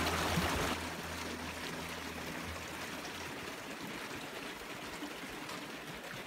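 Small meltwater stream running over stones and gravel, a steady rush of water that drops a little in level about a second in.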